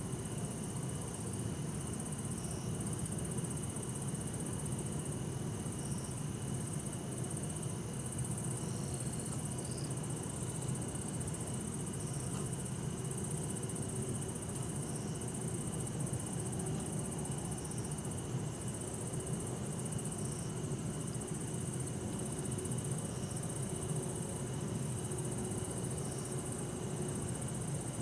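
Bell crickets and other insects singing steadily, with short trills repeating every couple of seconds, over a low, even hum of distant city traffic.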